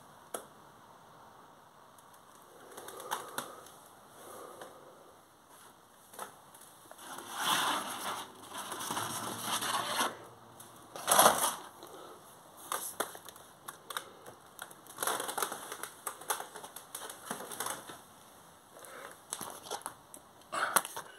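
Irregular rustling, crackling and knocking from objects being handled and moved, mixed with handling noise of the moving phone, with a sharp louder crunch about 11 seconds in.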